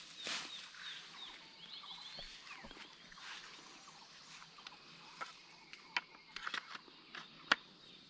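Dry, sharp snaps and crackles of bamboo stalks and leaves being handled, more frequent and louder in the last three seconds. Underneath, small birds chirp, with a quick run of short descending calls in the first two seconds.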